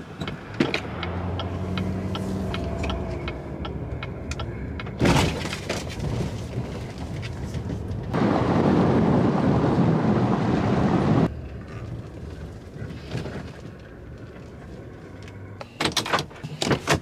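Vehicle sounds: a steady low engine hum with scattered clicks and knocks, a loud rushing noise for about three seconds in the middle, and a few sharp clunks near the end.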